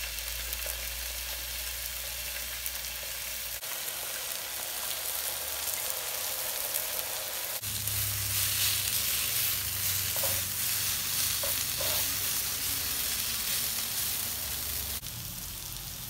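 Peppers, onions and a raw coiled sausage frying in oil on a hot griddle: a steady sizzle, with tongs stirring the vegetables about halfway through.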